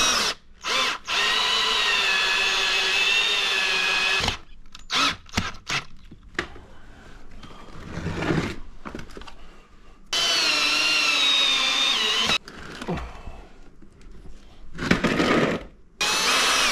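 A power drill driving screws to join two plastic milk crates, in three steady runs of a few seconds each with short blips of the trigger between. Knocks and rattles of handling fall between the runs.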